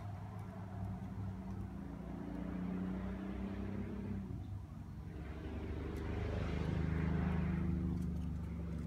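A motor vehicle's engine humming steadily. A rush of noise swells and fades about six to eight seconds in, like a car passing.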